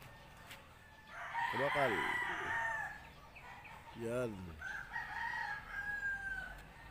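Rooster crowing twice: one crow about a second in, and a second, long held crow from about four and a half seconds in to near the end.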